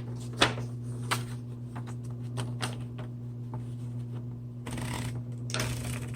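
Smith Corona Coronet Automatic 10 electric typewriter humming steadily with its motor running, while a sheet of paper is loaded. There are a few sharp clicks early on, and two short rustles of paper sliding in near the end.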